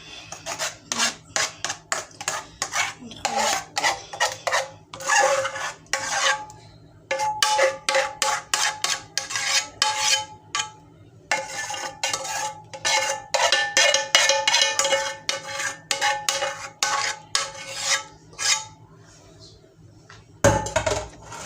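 Spoon scraping a saucepan in quick, repeated strokes, the pot ringing faintly, as the thickened lemon cream filling is scraped out and spread; a single heavier knock near the end.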